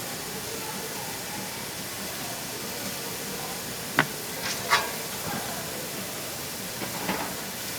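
Steady hiss of traditional market background noise, with a sharp click about four seconds in and a few light clatters after it.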